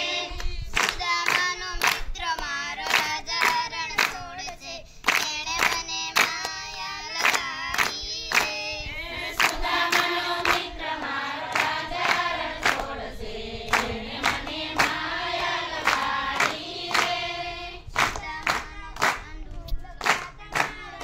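Voices singing a Gujarati Gor Maa devotional song, kept in time by steady hand-clapping of about two claps a second.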